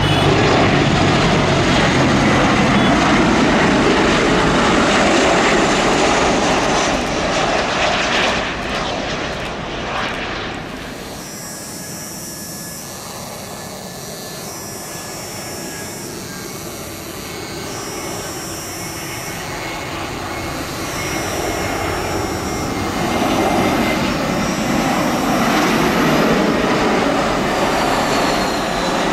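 Jet airliner engines during landings. A Boeing 737 runs loud through touchdown for about ten seconds, then drops away. An Airbus A320's engines build up again on approach and landing toward the end.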